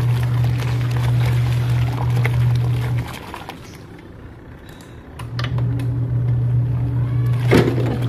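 Twin-tub washing machine's wash-side motor running with a steady low hum as the pulsator churns clothes in sudsy water. It stops for about two seconds a little after three seconds in, the pause in the wash cycle's agitation, then starts again, with a short sharp knock near the end.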